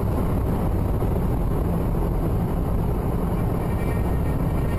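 Steady road noise inside a car cruising at about 98 km/h on a wet road: a low drone of engine and tyres under a hiss of tyres on wet asphalt.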